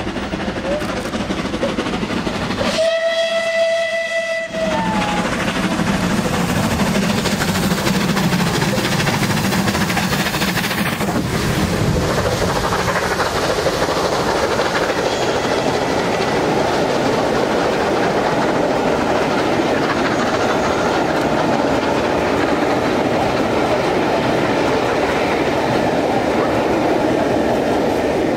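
Steam locomotive hauling a train at speed, giving one whistle blast of about a second and a half a few seconds in. Then comes the loud, steady noise of its exhaust and the engine and carriages running past close by.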